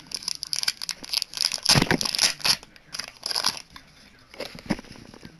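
A small clear plastic badge packet crinkling and rustling in the hands as it is opened, in a run of irregular crackles that are loudest about two seconds in.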